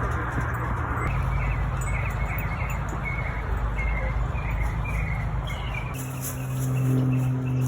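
Small birds chirping in a quick series over a steady low rumble. A low held tone comes in near the end.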